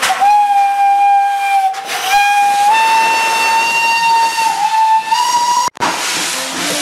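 Steam locomotive's whistle blowing one long, loud blast. It breaks off briefly about two seconds in, then sounds again a little higher and edges up in pitch near the end before cutting off suddenly. A hissing noise follows.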